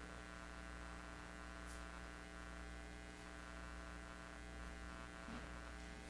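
Low, steady electrical mains hum with a buzz of many evenly spaced overtones, typical of a live microphone and sound-system chain left open. One faint click about two seconds in.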